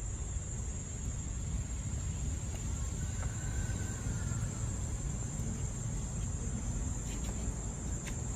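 Steady, high-pitched insect drone over a low, even rumble.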